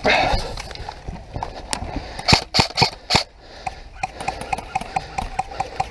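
Quick footsteps on hard ground, about three to four steps a second, with four loud sharp cracks in quick succession about two and a half seconds in.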